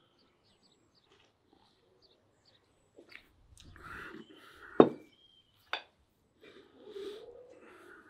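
An earthenware bowl set down on a table with a sharp clack about five seconds in, then a lighter knock, among soft mouth and breathing sounds of someone eating.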